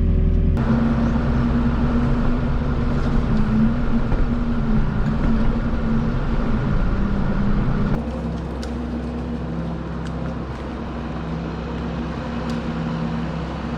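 Farm machine's engine running steadily, its sound changing abruptly about half a second in and again about eight seconds in, quieter after the second change.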